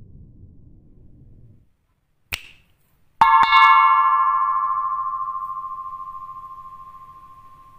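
A single click, then a bell-like chime struck twice in quick succession that rings on and slowly dies away: a subscribe-and-notification-bell sound effect.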